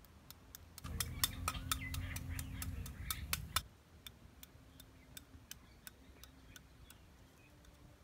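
Kitchen knife blade tapping and cracking against a snail's shell as it is chipped open: a run of sharp clicks, about three a second, that grow fainter and sparser about halfway through.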